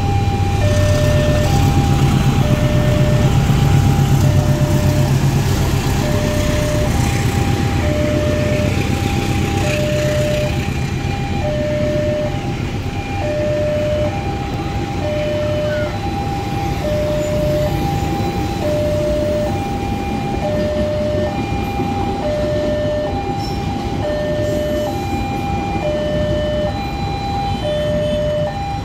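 Railway level-crossing warning alarm sounding: a higher and a lower electronic tone alternate, each about a second long, repeating over and over. Under it a passenger train passes with a heavy rumble and rush that is loudest in the first ten seconds and then eases.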